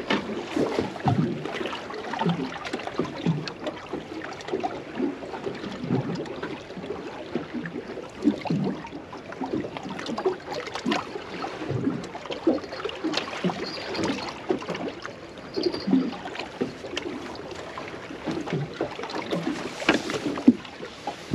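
Fleece jacket sleeve rubbing and bumping against the camera microphone: irregular rustles and soft knocks throughout.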